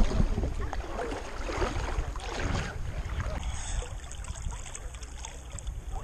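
Sea water sloshing and splashing close to the camera as someone wades through shallow water, over a steady low rumble. The swishing is busiest in the first few seconds and settles after about halfway.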